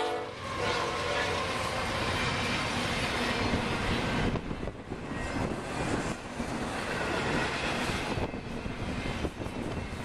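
Double-stack intermodal freight train rolling past close by, a dense, steady rumble of wheels on rail. Heavy wind buffets the microphone, with gusty rises and dips.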